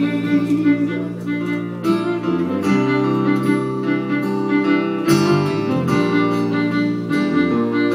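Live acoustic country music with no singing: an acoustic guitar strumming while a fiddle plays held melody notes over it.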